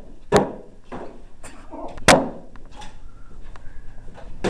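Homemade swords and shields whacking together in a mock sword fight: two loud hard strikes, about half a second in and about two seconds in, with lighter knocks between and a last strike near the end.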